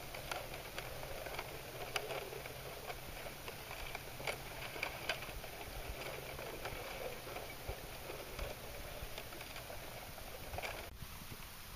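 Thin shards of floating lake ice clinking and tinkling, an irregular patter of small light clicks with a few louder ones, quieter near the end.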